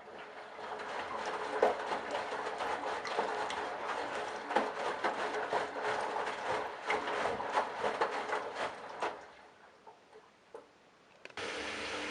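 Candy Bianca washing machine's drum turning the delicates load, with splashing and many small knocks and clicks for about nine seconds before it stops. After a short pause with a few ticks, a steady machine hum starts near the end.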